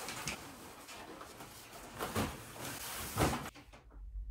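A large cardboard box carried and set down on the floor, with rustling and scraping and two dull thumps about two and three seconds in; near the end a door handle clicks.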